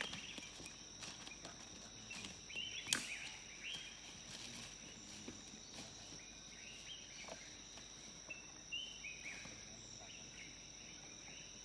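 Faint outdoor insect chorus: a steady high-pitched drone with scattered short chirps, and one sharp click about three seconds in.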